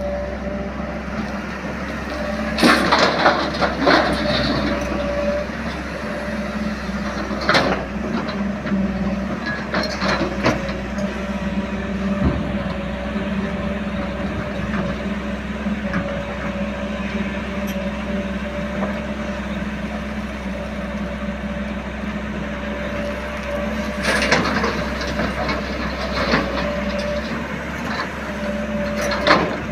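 JCB 3DX backhoe loader's diesel engine running steadily, with a held hum. Several sharp clanks and clatters from the working machine break in, loudest about three seconds in, around ten seconds, and again near the end.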